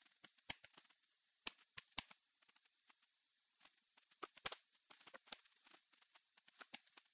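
Faint, irregular keystrokes on a computer keyboard, a few clicks a second.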